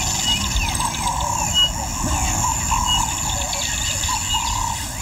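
African bush ambience: birds calling, with short high chirps about once a second and a wavering call throughout, over insect drone and a steady low rumble.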